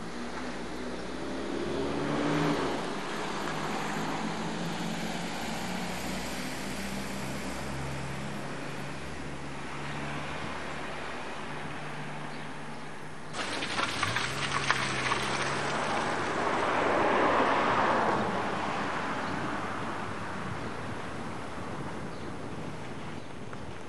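Car engine and road noise from a moving vehicle, with the engine note shifting as it drives. About 13 seconds in the sound changes abruptly and the engine pitch rises. Swells of rushing noise come a couple of seconds in and again around 17 seconds.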